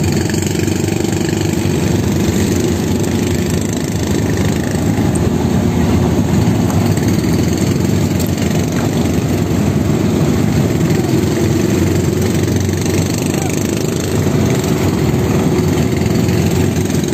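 Fishing boat's engine running steadily under way, with water rushing along the hull, as the net is paid out over the side.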